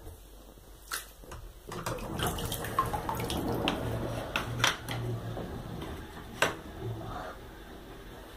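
The last of the bathwater draining down the plug hole: gurgling and sucking, with many sharp pops and a low hum in patches. It builds after a couple of seconds and tails off near the end as the tub empties.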